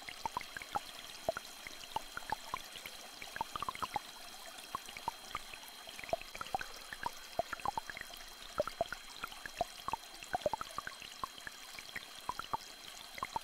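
Small stream flowing, with a steady watery hiss and many irregular small plinks and drips. Two faint steady high-pitched tones sound over it throughout.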